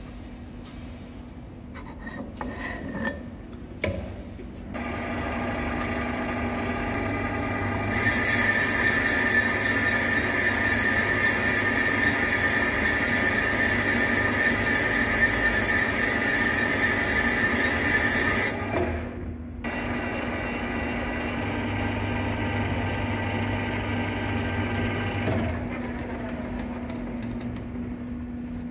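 A metal lathe runs with a steady whine while a boring bar cuts an internal thread inside a steel hydraulic cylinder barrel. About eight seconds in the cut sets in with a loud, high steady ring for about ten seconds, stops briefly, then the lathe runs on more quietly. A few knocks come first as the end cap is handled against the barrel.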